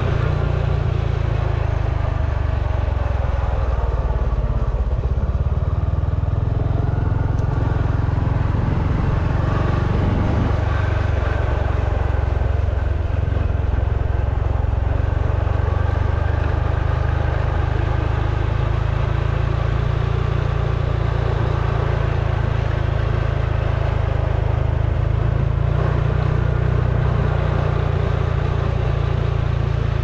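Motorcycle engine running steadily while under way, with a constant rush of wind and road noise over it. The engine note shifts a little in the first half, then holds steady.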